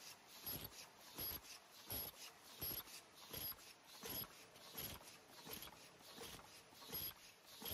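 Paper cup forming machine running, with a regular mechanical stroke about three times every two seconds as its turret works through the cup stations.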